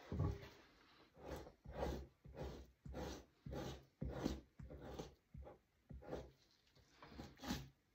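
A knife scraping fat and flesh off a beaver hide stretched over a wooden fleshing beam, in a dozen or so short, quick, repeated strokes.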